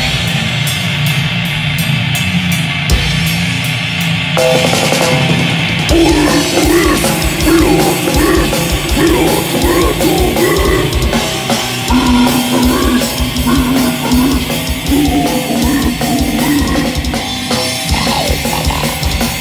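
Live grindcore-style band playing loud, heavy music on distorted bass guitar and drums. The drums come in hard and fast about six seconds in, over a dense, steady bass.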